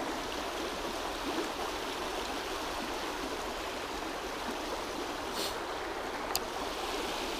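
Mountain stream flowing steadily, an even rush of water, with two faint clicks about five and six seconds in.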